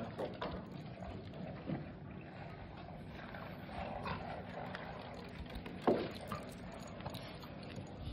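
A French bulldog's small noises over a steady outdoor background, with one short, louder sound about six seconds in.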